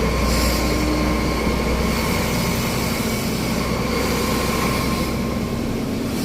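Heavy truck's diesel engine running with a steady low drone, heard from inside the cab as it moves slowly along.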